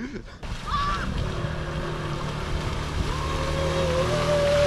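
A vehicle on the move: a steady engine drone under rushing wind and road noise. A higher whine comes in about three seconds in and rises slightly.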